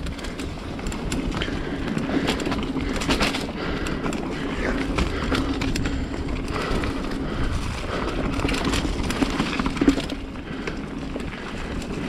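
Mountain bike rolling fast down a rough dirt singletrack: tyres running over dirt, roots and rocks, with frequent clicks and clatters from the bike and a steady low hum underneath.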